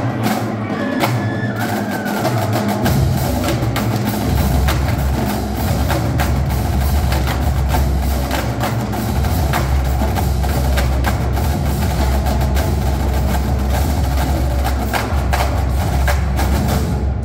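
High school marching drumline, with snare drums, multi-tenor drums, bass drums and cymbals, playing a fast, dense passage. The bass drums come in heavily about three seconds in, and the whole line cuts off together at the end.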